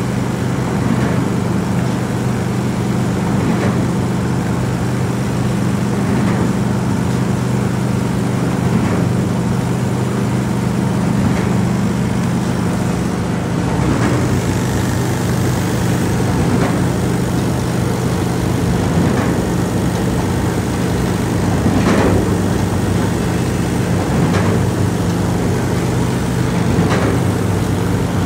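Automatic paper sewing and folding machine running: a steady motor hum with a short clack repeating about every two and a half seconds.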